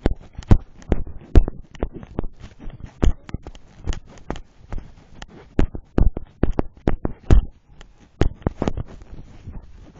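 Irregular knocks, clicks and rubbing from a phone being handled and jostled, close on its microphone, some of them loud.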